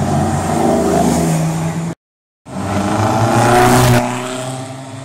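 Classic sports car engines passing: a Mercedes-Benz 300 SL's straight-six rises in pitch as the car approaches, then cuts off abruptly. After a short silence a second classic race car, an Ermini 357 Sport, accelerates past, loudest about four seconds in and then fading as it goes away.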